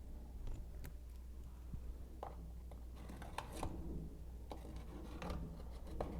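Scattered light knocks, clicks and scrapes of a PVC drain pipe being handled and moved aside, busiest around the middle, over a steady low hum.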